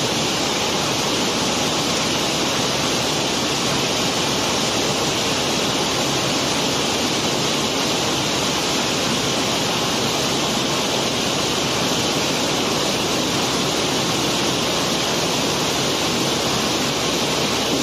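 Continuous steady rushing noise of a cobblestone cargo being unloaded from a barge's hold, the stones pouring down into the discharge opening, with no pauses or single impacts standing out.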